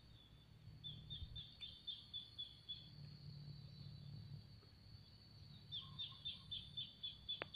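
A bird calling in two runs of short, quick chirps, about five a second, the second run near the end, over a faint steady high hum and a low outdoor rumble.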